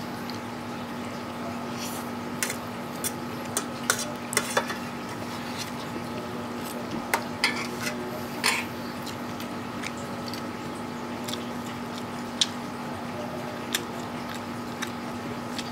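Metal fork clinking and scraping against a stainless steel tray of instant noodles, in irregular sharp clicks that come thickest in the first half and thin out later. A steady low hum runs underneath.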